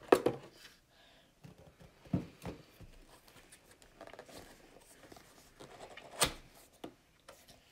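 Cardboard lamp packaging being handled: a boxed lamp is slid out of its carton and set upright on a table, with soft rustling and a few sharp knocks, the loudest about six seconds in.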